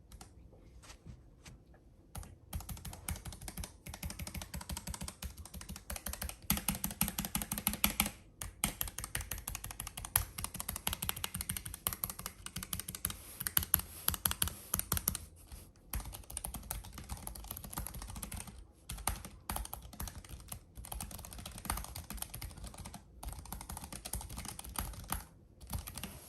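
Typing on a Keychron K7 low-profile mechanical keyboard with tactile banana switches: a few separate key presses, then a fast, dense run of key clicks broken by a few short pauses.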